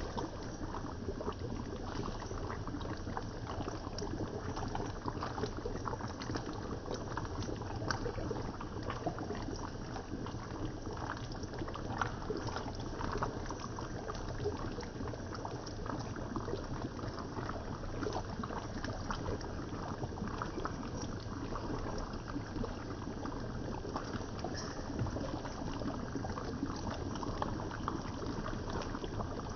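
Beef stew in a thick soy-and-7-Up sauce simmering in a pan on the stove, with a steady sound of small bubbles popping. The sauce is boiling down to thicken while the beef softens.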